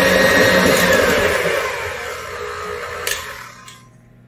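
Electric tilt-head stand mixer beating batter, then switched off: its motor hum falls in pitch and dies away over a couple of seconds. A sharp click follows near the end as the mixer's head is handled.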